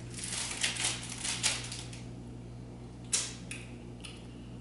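Teeth biting and chewing a frozen ice pop with a crunchy, icy texture: a quick run of crisp crunches in the first two seconds, then a few single crunches as the bite is chewed.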